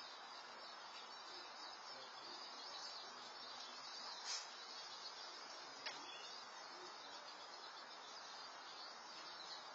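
Faint, steady outdoor background hiss picked up by a security camera's microphone, with two short clicks about four and six seconds in.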